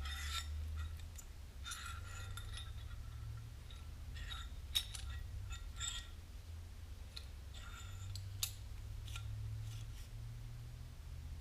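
Metal parts clinking and scraping in a series of separate light clicks, some leaving a brief ring, as a thrust washer is handled and fitted onto a tractor steering spindle. A steady low hum runs underneath.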